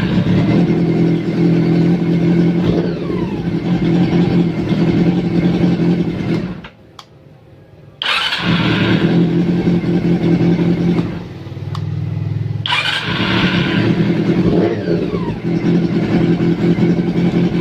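Honda CB400 Super Four inline-four engine running. It stops about six seconds in, starts again at once a second or two later, dips quieter for a moment, then runs on until it cuts off at the end. These are first runs after a top-end rebuild done to cure hard starting, and it now starts readily.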